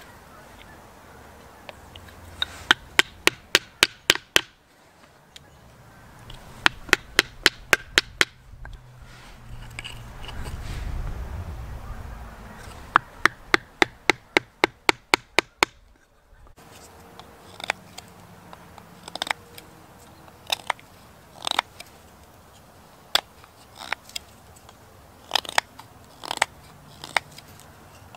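Quick runs of sharp knocks, about four or five a second, as a wooden baton taps the spine of a small knife to split a stick. Later come scattered single clicks of the blade cutting into the wood.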